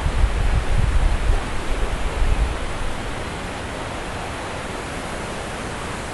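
Wind buffeting the camcorder's microphone in low gusts for the first two or three seconds, then easing off, over a steady outdoor hiss.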